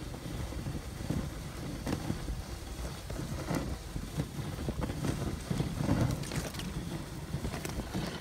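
Dog sled running over a packed snow trail: a steady rush of the runners on snow and wind on the microphone, with a few short sharp scrapes along the way.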